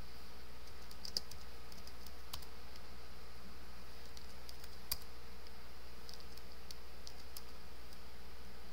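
A dozen or so scattered clicks from a computer keyboard, irregular and spread out, the strongest about a second in and again near the five-second mark. Under them runs a steady electrical hum and hiss.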